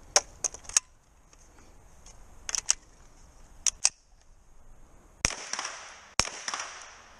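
Pistol-caliber carbine firing on a USPSA stage: a few sharp clicks near the start as the carbine is reloaded, then shots in quick pairs, and two louder shots about a second apart near the end, each followed by a long echo.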